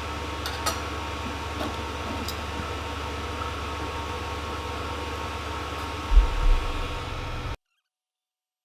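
Steady mechanical fan hum with a few faint clicks, and a brief low thump about six seconds in. The sound then cuts off abruptly to silence.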